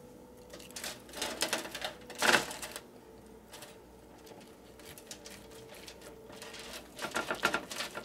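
Knife sawing through the crispy skin of a baked chicken breast and scraping on the foil-lined pan: rapid crackling scrapes in two spells, one about a second in and another near the end.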